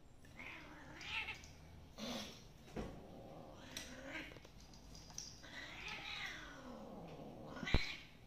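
A domestic cat meowing faintly several times, with one long drawn-out call in the second half. A sharp click comes shortly before the end.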